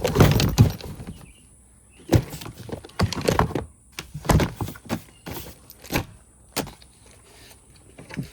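Items being handled and rummaged in a cardboard box: a string of sharp knocks and clatters about once a second with rustling between them, loudest at the start.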